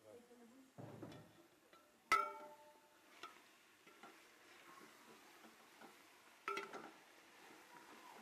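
A metal spoon clinking and scraping against a hammered metal cooking pot while chopped vegetables are stirred into minced meat. Two sharp, ringing clinks stand out, about two seconds in and again a little before the end, with a dull knock about a second in.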